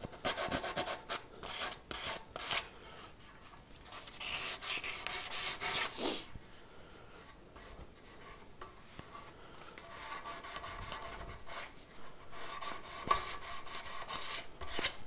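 Small piece of sandpaper rubbed by hand along the edge of a guitar body's binding, rounding it over slightly: a run of short, irregular scratchy strokes, quieter for a stretch in the middle.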